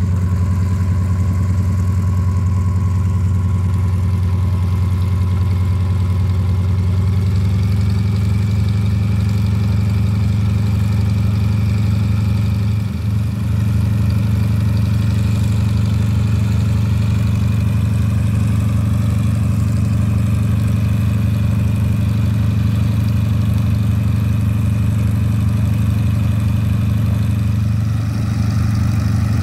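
Yak-52's nine-cylinder radial engine idling steadily with its propeller turning, its note shifting slightly about seven seconds in.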